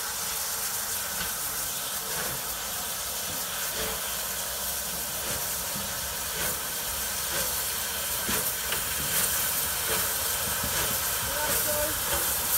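Rebuilt West Country class steam locomotive starting away slowly, with a steady loud hiss of steam escaping at its cylinders. The sound grows gradually louder as it draws nearer.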